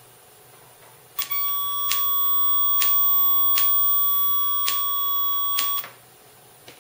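Small 4-ohm speaker driven by a PAM8403 class D amplifier board, playing a 15,075 Hz test tone from a phone's tone generator. It is heard as a steady high tone mixed with a lower tone near 1 kHz and faint ticks just under a second apart. It starts about a second in and stops suddenly about four and a half seconds later.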